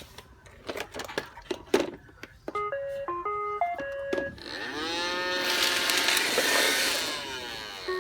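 Roomba robot vacuum being restarted. After a few clicks and knocks it plays a short tune of stepped electronic beeps. Its motors then spin up with a rising whir and run for about three seconds before stopping, as it fails again with Error 1.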